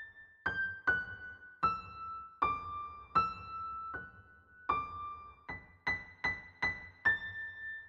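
Background music: a slow melody of single ringing keyboard-like notes, each struck sharply and fading, about one or two a second.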